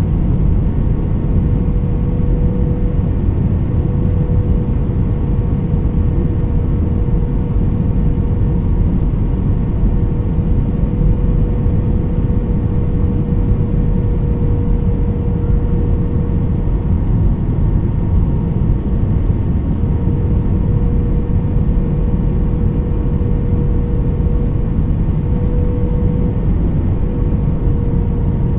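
Steady airliner cabin noise in flight: turbofan engine and airflow rumble with a constant mid-pitched hum running through it, as the jet descends on approach.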